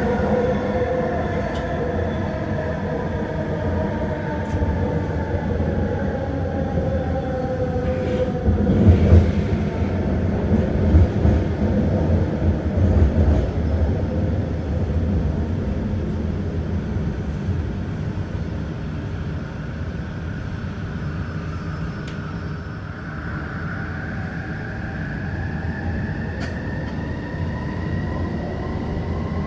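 Vancouver SkyTrain running on its linear induction motors: wheel and track rumble under a motor whine that falls in pitch over the first several seconds as the train slows. There are a few knocks in the middle, and then the whine rises again over the last several seconds as the train picks up speed.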